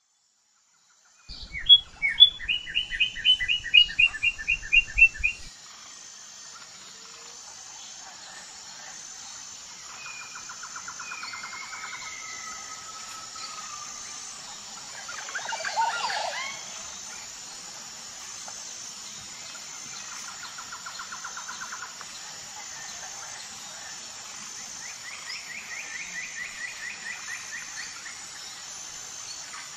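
Birds chirping and calling: a loud run of rapid repeated chirps about a second in, lasting about four seconds, then softer trills now and then over a faint steady high hiss.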